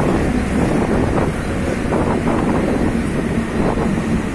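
Busy railway station ambience: a steady low rumble with wind buffeting the phone's microphone and faint sounds of the crowd.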